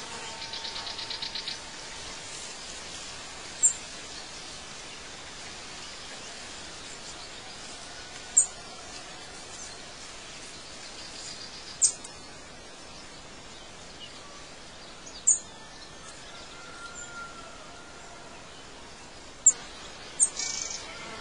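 Songbirds calling over a steady outdoor hiss: a fast trill at the start, then about six short, sharp, high chirps a few seconds apart, with a faint thin whistle in between.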